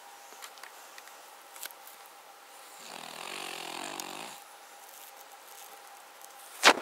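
Cavalier King Charles Spaniel snoring roughly: one long snore about three seconds in, lasting about a second and a half. A single sharp loud click comes near the end.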